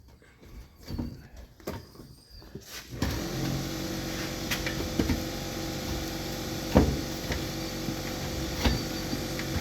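Quiet handling of a rubber inner tube and tire. About three seconds in, a steady motor hum comes on abruptly and keeps running, with a few clicks and knocks over it.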